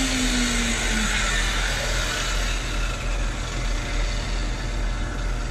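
Corded circular saw spinning down after a cut through plywood, its pitch falling until it stops about a second in. A steady background rush and low rumble continue throughout.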